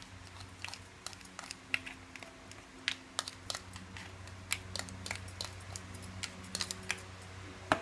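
Small plastic toy pieces being handled, giving a scattering of light, irregular clicks and taps over a steady low hum.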